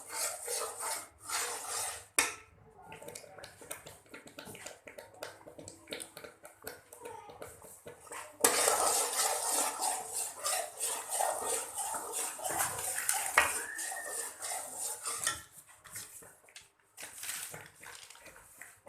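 Metal spoon stirring and scraping in a cooking pot, with repeated clatters and knocks against the metal; the scraping is heaviest and most continuous through the middle.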